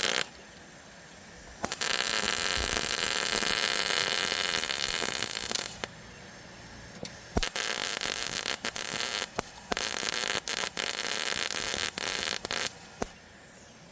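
Eastwood MP140i MIG welder arc crackling in runs: a weld of about four seconds starting near two seconds in, a couple of quick tacks, then a longer broken run of several seconds with short breaks between trigger pulls. The arc is heating up and burning through thin car body sheet metal.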